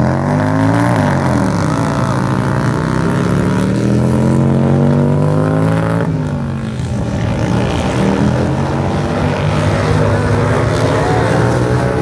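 Vintage racing motorcycles, among them a 1937 Indian, running hard around a dirt track. The engine pitch climbs and falls again and again as the riders accelerate and back off for the turns, with a sharp drop about six seconds in.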